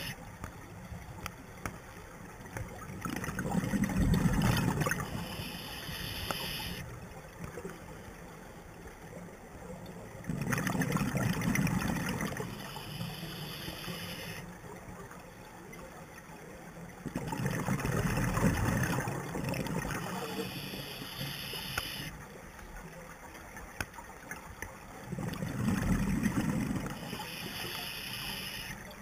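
Scuba diver breathing through a regulator, heard underwater: four bursts of exhaled bubbles, about seven seconds apart, with a fainter high hiss between them.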